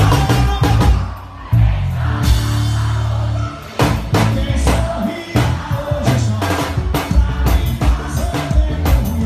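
Live band music through a concert PA: drum kit with bass drum and snare, bass, and a male singer's vocals. About a second and a half in, the drums stop for about two seconds under a held bass note, then the full beat comes back in.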